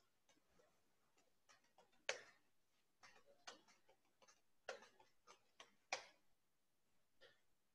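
Faint, irregular small clicks and taps, about a dozen of them at uneven spacing, with the sharpest about two seconds in and about six seconds in.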